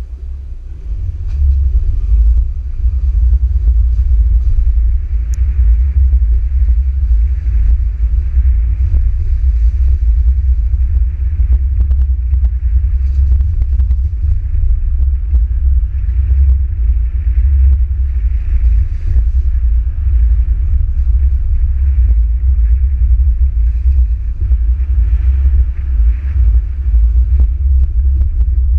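Low, steady rumble of a car driving, picked up by a camera mounted on its bonnet. The rumble is softer for about the first second and a half, then holds level.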